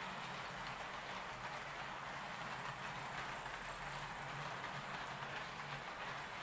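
HO-scale model trains running on the layout's track: a steady rolling rush of metal wheels on rail with a low motor hum underneath.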